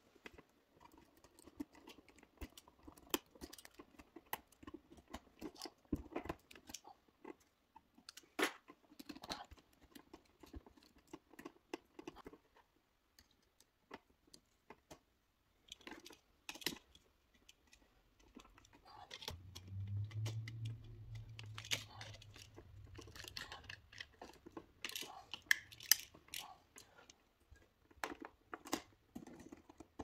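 Faint, scattered clicks, scrapes and crackles of hand work on a wall switch: stiff copper wires being bent and handled, a screwdriver working the switch's terminal screws and wire strippers on the conductors. A low hum comes in for a few seconds around the middle.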